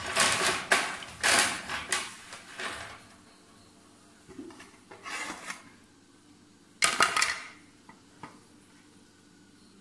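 Kitchen clatter: pots, a tray and utensils being handled on a counter. A burst of clinks and scrapes fills the first three seconds, shorter ones come around four and five seconds in, and another sharp clatter comes about seven seconds in.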